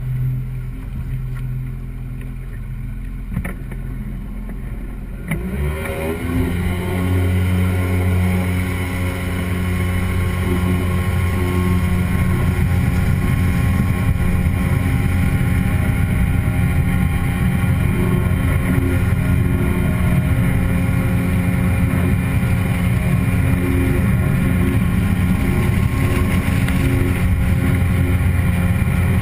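Outboard jet motor on an aluminum boat running at low throttle, then throttled up about five seconds in, its pitch climbing to a steady, loud high-speed run.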